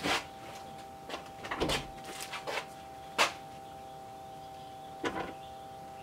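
Refrigerator door and contents being handled: a series of clicks and knocks, the sharpest about three seconds in, as a bagged whole chicken carcass is taken out and the door shut. A steady faint hum lies underneath.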